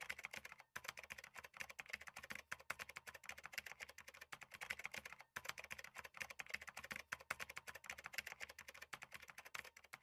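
Keyboard typing sound effect: rapid, faint key clicks with a couple of brief pauses.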